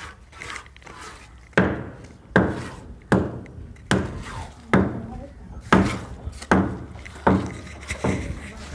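Hand hammer striking again and again at a steady pace, about one blow every three-quarters of a second, chipping away at a surface; about nine blows, starting about a second and a half in.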